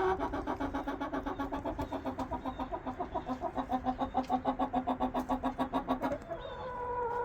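Agitated pet hens calling: a fast, even run of clucks, about seven a second, for some six seconds, then a long drawn-out plaintive call near the end. It is the fussing the owner is trying to calm.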